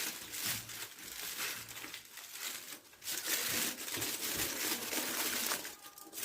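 Aluminium foil crinkling and crumpling in irregular crackles as it is folded by hand into a tray shape.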